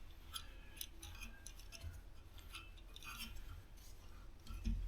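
Faint, scattered metallic ticks and clicks as a new air-compressor pressure regulator is turned onto its threaded pipe fitting by hand, with a soft thump near the end.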